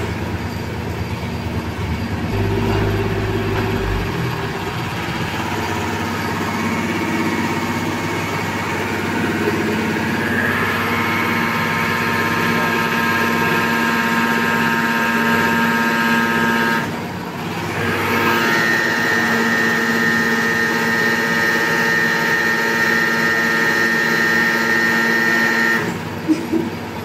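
Concrete pile-driving rig's motor running steadily with a whine, dropping out briefly about two-thirds of the way through and then picking up again.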